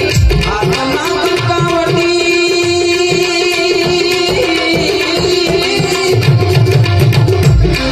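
Instrumental interlude of a Gujarati bhajan: a harmonium plays a sustained melody over a steady hand-drum rhythm.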